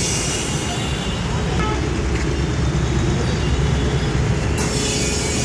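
Steady low rumble of vehicle traffic and engines, with a high hiss that fades in the first moment and cuts back in suddenly near the end.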